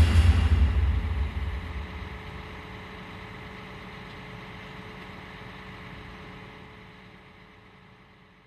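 Background music ends on a final drum hit, its low boom dying away over about two seconds. Under it a road sweeper's engine runs steadily with a faint steady whine, fading out near the end.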